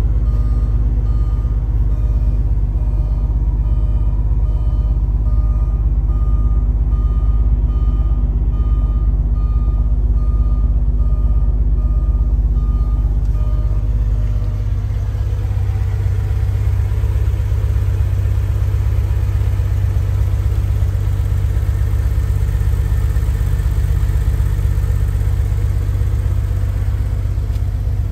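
Air-cooled 3.6-litre flat-six of a 1995 Porsche 993 idling steadily while still cold from a freezing start. A warning chime in the cabin beeps over and over until about halfway through. After that the engine note changes and comes through more brightly.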